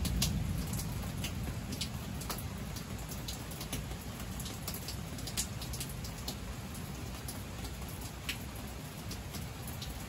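Steady night rain with single drops ticking sharply close by. The low rumble of thunder dies away over the first couple of seconds.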